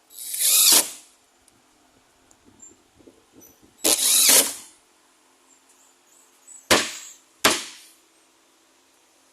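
Power drill driving screws into a cabinet panel in four short trigger pulls: two runs of just under a second, then two quick blips near the end as the screw is seated.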